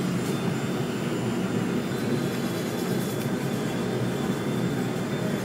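A nail salon table's dust collector fan drones steadily while an electric nail drill files an acrylic nail, adding a faint high, even whine.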